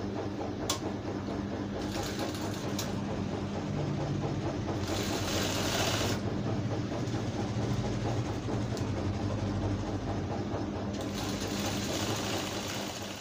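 Sewing machine running steadily as it stitches a seam along the garment, with a couple of sharp clicks in the first few seconds.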